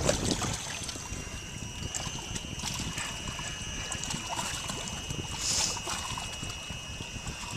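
Water lapping and trickling against a small boat's hull, with small knocks and a faint steady high whine from about a second in.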